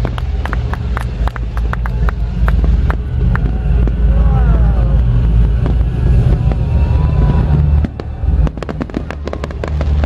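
Fireworks display: a rapid run of cracks and bangs from shells and effects bursting, over a steady low rumble that drops away about eight seconds in.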